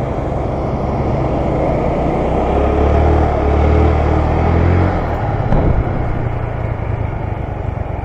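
Riding on a motor scooter in traffic: steady engine and road noise, with a passing vehicle's engine growing louder in the middle and then fading. There is a short thump about five and a half seconds in.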